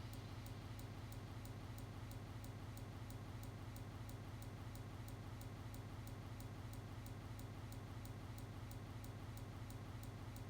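Faint, steady ticking, about four ticks a second, over a constant low hum.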